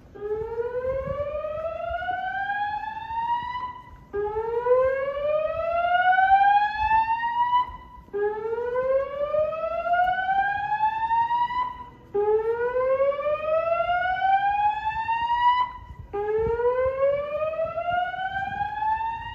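Building fire alarm evacuation speakers sounding a whoop tone: five slow rising sweeps, each about four seconds long, repeated back to back. This is the signal to evacuate the building.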